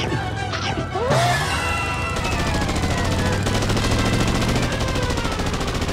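Cartoon motorcycle engine sound effect: a fast, even rattling putter that starts about two seconds in, over background music. Before it, a few sliding whistle-like cartoon effects and a hit.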